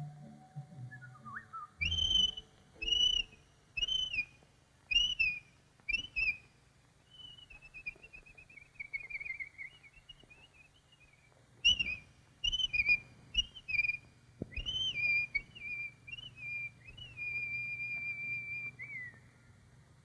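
Whistled calls of a cartoon bird: short notes that rise and fall, about one a second, then a falling warbled trill, then more calls ending on a long held note that drops away.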